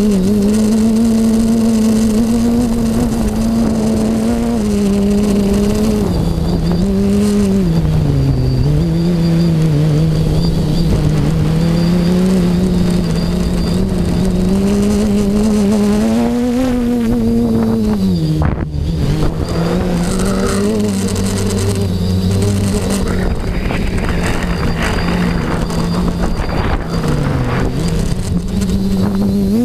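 FPV quadcopter's electric motors and propellers buzzing, recorded from the onboard GoPro, the pitch rising and falling with the throttle and a brief cut about two-thirds of the way in. Wind rushes over the microphone, and the uploader calls the motors and props unbalanced.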